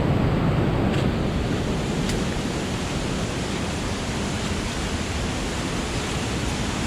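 Steady rushing water of a waterfall, with two faint ticks about one and two seconds in.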